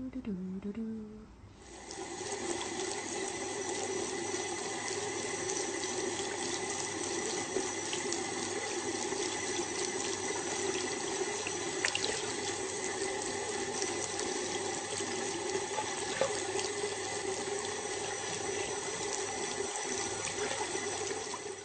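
Water running steadily from a bathroom tap into a sink, starting about two seconds in, with a few faint clicks.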